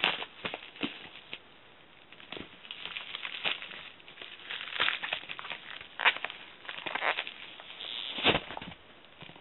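Paper mailing package being torn and crumpled by hand: irregular crinkling and ripping, with louder rips about five, six and eight seconds in.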